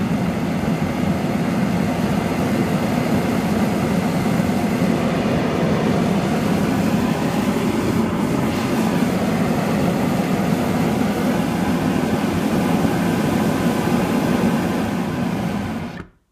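Homemade 3/4-inch venturi propane forge burner with a #57 (1.1 mm) brass orifice, burning with a steady rushing jet flame. The sound stops suddenly near the end as the gas is shut off and the flame goes out.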